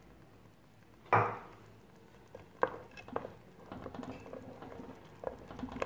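Wooden spoon stirring hot sugar syrup in an aluminium pot while ground mastic mixed with sugar is worked in. A sharp knock about a second in, then several light clicks and scrapes of the spoon against the pot.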